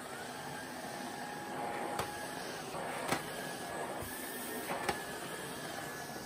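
LG CordZero canister vacuum cleaner running steadily with a whining motor. A few short sharp clicks sound over it.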